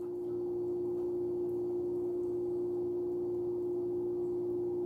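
A steady hum at one pitch, unchanging throughout.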